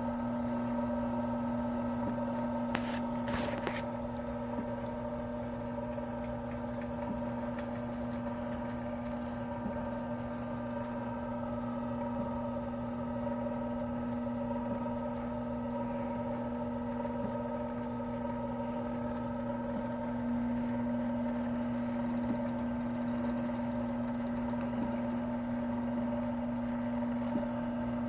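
Motor-driven rose engine lathe running steadily: a constant hum with a higher whine over it, faint ticks here and there and a short clatter about three seconds in.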